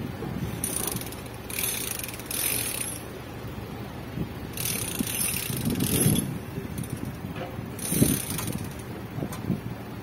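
Road traffic passing: cars and a light truck driving by, swelling and fading, with several short high-pitched bursts over the top.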